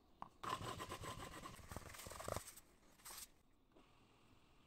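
A heated blade tip scraping and rubbing against wax filler for about two seconds, then a short second scrape about three seconds in.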